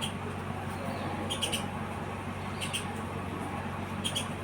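House sparrows chirping: short, sharp chirps in little clusters of two or three, about every second and a half, over a steady low hum.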